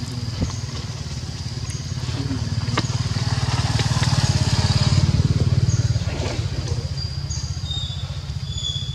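Engine of a passing motor vehicle: a low, pulsing drone that grows louder to a peak about halfway through, then fades.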